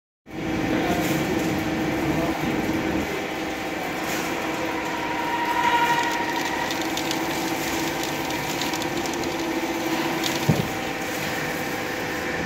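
CNC lathe turning a metal workpiece: the spindle runs steadily with a few held tones while the tool cuts, giving many small clicks, with a brief knock about ten seconds in.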